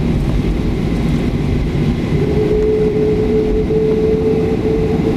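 Cabin noise inside a Boeing 737-300 taxiing after landing: a steady, loud low rumble from the engines at idle and the wheels rolling over the taxiway. A steady hum-like tone joins about two seconds in.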